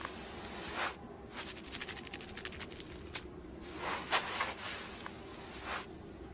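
Cartoon sound effects of a lizard dragging itself across sand: a quick run of light scrabbling ticks in the middle, between a few short breathy rushes of noise.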